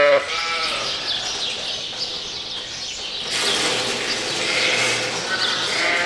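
A flock of sheep bleating, several overlapping calls, the loudest right at the start and more near the end, with a steady hiss joining about three seconds in.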